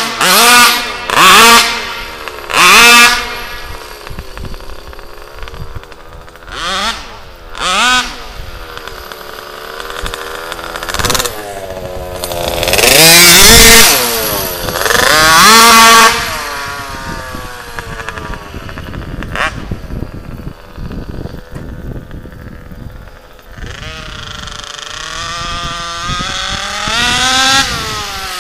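RCMAX 90cc two-stroke petrol engine in a large-scale HPI Baja RC buggy, revving hard in bursts and dropping back as the car makes speed passes, its pitch sweeping up and down. A few short loud bursts come in the first three seconds, a long loud pass around the middle, then it eases off before building again near the end.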